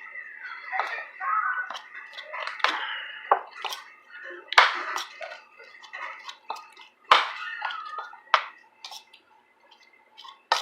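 Close-up eating sounds: wet chewing with a string of sharp clicks and knocks, like utensils and dishes, the loudest about four and a half and seven seconds in.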